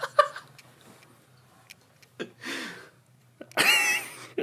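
A few sharp clicks, the loudest just after the start. About three and a half seconds in comes a short, loud burst of a person's voice without words.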